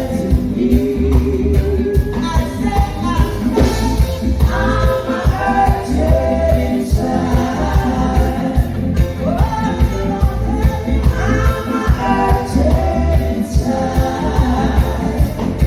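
Live reggae band playing, with a steady bass beat and a sung melody over it.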